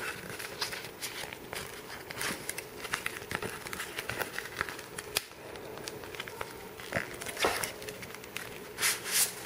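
Plastic tool-kit pouch crinkling and rustling as it is handled and its edge worked open, with many small irregular clicks and crackles.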